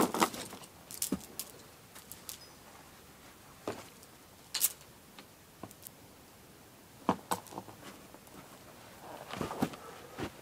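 Scattered clicks and knocks, a second or more apart, from a lifting strap and its buckle being handled against a log wall.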